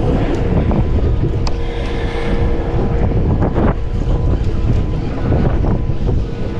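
Strong wind buffeting the microphone over a small boat's motor running with a steady hum, in rough, windy seas.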